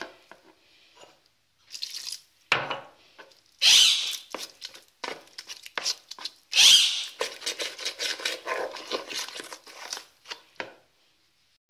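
A spoon stirring thick batter in a plastic bowl: irregular scrapes and knocks against the bowl with wet squelching, and two louder scrapes about four and seven seconds in.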